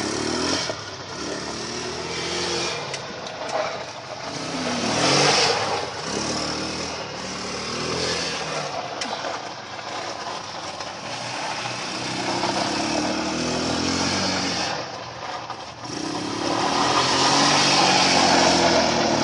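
ATV engines revving up and down as the quads ride. Louder passes come about five seconds in and again near the end.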